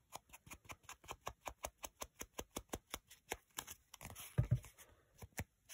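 Quick, even dabbing of a small ink applicator against the edges of book-page paper on a paper bag, about six or seven light taps a second, distressing the edges to make them look old. A louder handling thump about four and a half seconds in as the bag is turned over.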